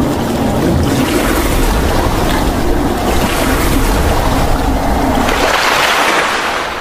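Rushing, splashing water sound effect: a steady, loud wash of water noise that grows brighter and hissier about five seconds in, then fades out.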